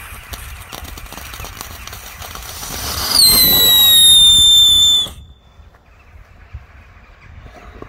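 Toy-truck ground firework spraying sparks with a hissing crackle, then about three seconds in a loud whistle that slides slightly down in pitch for about two seconds and cuts off suddenly.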